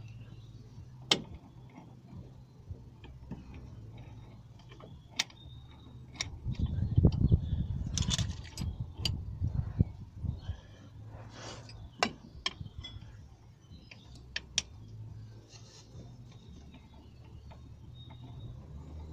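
Scattered sharp metallic clicks and knocks of bolts and tools being handled while the bolts of a gearbox mount are fitted under a car. A louder stretch of handling noise comes about six to ten seconds in.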